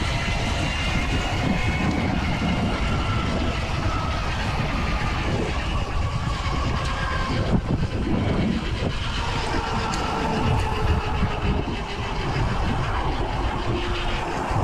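Wind buffeting and rushing over the microphone of a camera on an e-bike riding at speed, mixed with passing road traffic, and a few faint whines that slowly fall in pitch.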